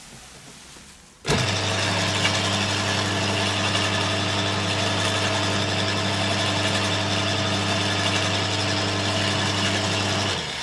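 A 2800 W electric garden shredder is switched on about a second in. Its motor and cutter run with a steady hum and mechanical rattle for about nine seconds, then it is switched off and stops suddenly.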